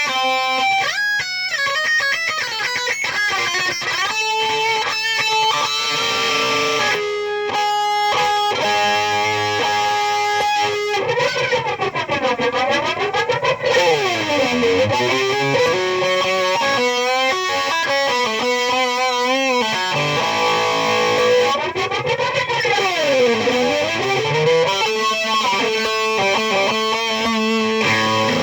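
Distorted electric guitar played through a valve amplifier and a Peavey 5150 speaker cabinet: quick runs of notes and held notes, with wide swooping pitch bends that dip down and come back up, once near the middle and again later.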